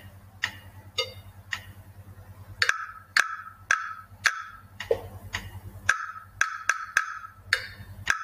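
A percussion instrument played along to a rhythm exercise. A few light ticks on an even beat lead in, then from about two and a half seconds in come sharp, short-ringing knocks in a rhythm of longer and quicker strokes.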